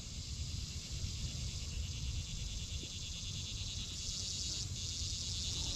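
Insects trilling steadily in the summer grass, a high, fast-pulsing buzz that swells briefly about four seconds in, over a low rumble.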